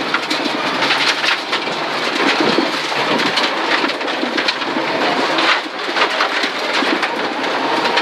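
Rally car driving fast on a gravel stage, heard from inside the cabin: a dense, continuous rattle and hiss of stones thrown against the underbody and wheel arches, over the running engine.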